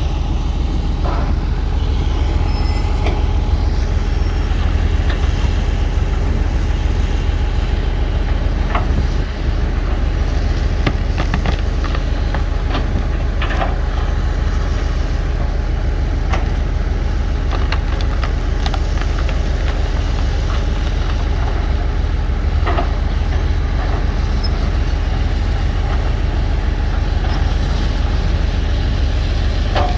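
Heavy diesel earthmoving machinery running steadily with a deep engine drone, with scattered metallic clanks and knocks.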